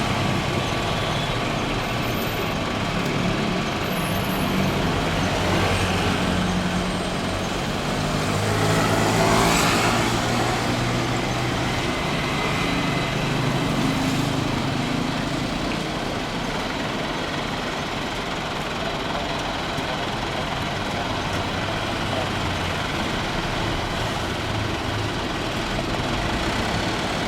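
Steady engine noise from heavy machinery, growing louder to a peak about nine to ten seconds in, as if something passes close, then settling back to a steady rumble.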